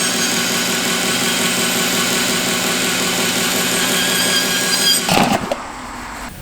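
A power tool in a bladesmithing workshop runs steadily with a loud whine, then cuts off a little after five seconds in, leaving a quieter background.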